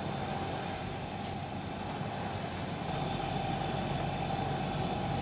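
Sailboat's inboard engine running steadily while motoring: an even low hum with a steady higher tone above it.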